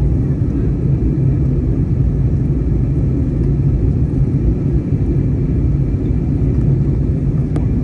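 Steady low rumble of engine and airflow noise heard inside the cabin of an Airbus A320neo airliner in flight on its descent.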